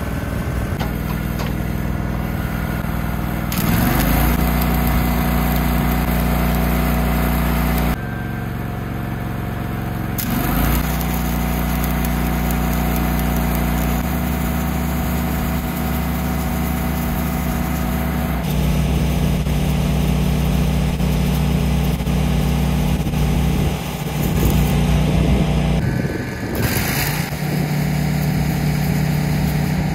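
Stick welding arc crackling over the steady running of a welding rig's engine-driven welder. The engine note steps up and drops back several times.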